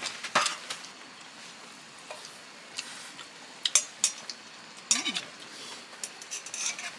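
Eating utensils clinking and scraping against dishes and pots: a scatter of short sharp clicks over a steady background hiss.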